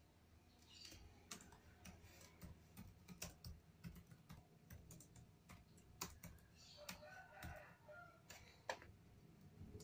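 Faint, scattered clicks and taps of a laptop keyboard and mouse. A short, faint pitched call sounds in the background about seven seconds in.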